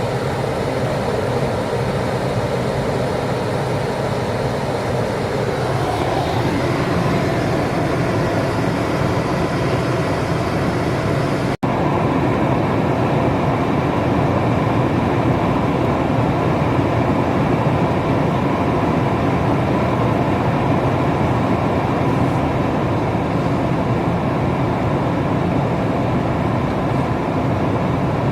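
Steady road and engine noise of a vehicle driving, an even roar that barely changes. It cuts out for an instant about eleven and a half seconds in.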